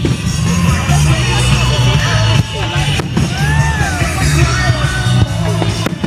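Loud music with a heavy steady bass and singing or shouting voices, with three sharp firework bangs about three seconds apart.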